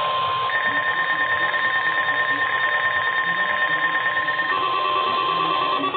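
NOAA Weather Radio warning alarm tone, a steady single tone of about 1 kHz, sounded for the required weekly test of the warning device. A second, higher tone that wavers in level sounds over it from about half a second in until about four and a half seconds. After that the tone turns broken and slightly higher.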